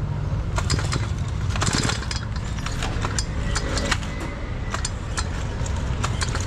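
Stihl MS 380 two-stroke chainsaw engine running steadily, with irregular sharp metallic clicks and rattles over the engine note, from a saw whose piston is damaged and due for replacement.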